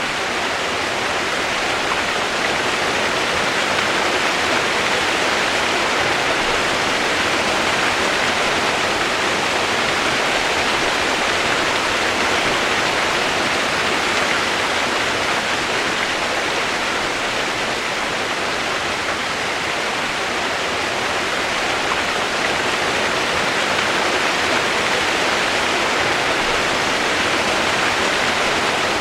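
Running water rushing steadily, an even hiss that doesn't change or break.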